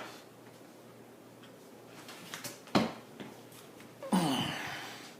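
Light handling noises of threaded steel pipe fittings and tools: a few soft ticks, one sharp click, then about four seconds in a short rasping sound that falls in pitch and fades.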